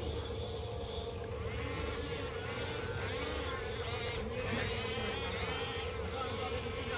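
RC bulldozer's electric drive motors running with a steady hum and whine.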